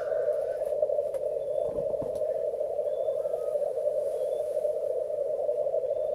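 Male black grouse rookooing at a lek: a steady, unbroken low cooing chorus from many displaying cocks, with a few faint short higher calls over it.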